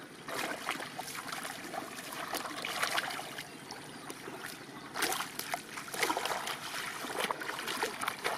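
Shallow muddy water sloshing and splashing as hands grope through the mud and legs wade in a flooded rice field. The splashes come unevenly, with louder ones about five and six seconds in.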